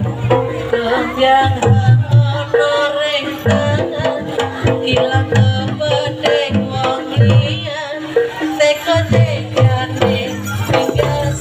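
Traditional Javanese jaranan accompaniment music: hand drums beating a quick, busy rhythm under a wavering melody.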